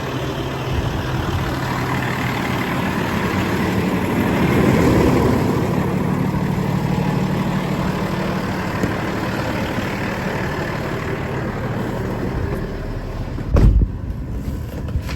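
An engine running steadily, growing louder for a moment about four to five seconds in. A heavy thump about a second and a half before the end, after which the sound is duller.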